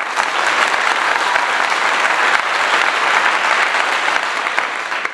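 A crowd applauding with steady, dense clapping that starts abruptly and begins to fade near the end.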